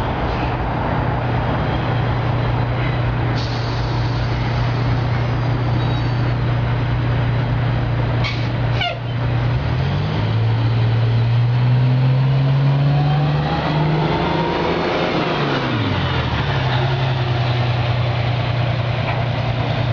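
Orion transit bus's diesel engine idling steadily at the stop, with a short air release about eight to nine seconds in. The engine then revs up as the bus pulls away, its pitch rising for several seconds and dropping sharply as the bus goes past.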